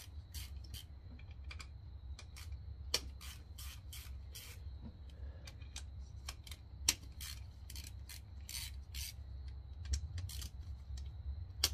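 Quarter-inch hand ratchet clicking in short, irregular strokes while loosening bolts on a motorcycle cylinder head, over a steady low hum.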